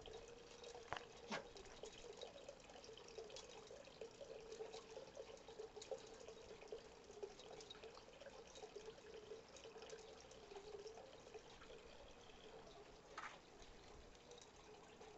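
Near silence: a faint steady hum that wavers slightly, with scattered small clicks and a few sharper ticks about a second in and again near the end.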